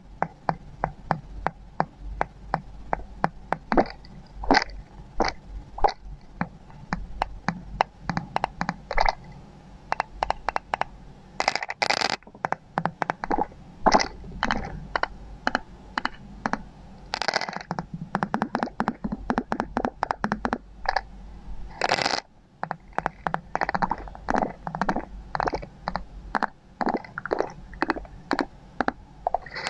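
Rapid, irregular tapping and knocking on small glass ampoule bottles: sharp clicks, often several a second, in quick runs with short pauses between.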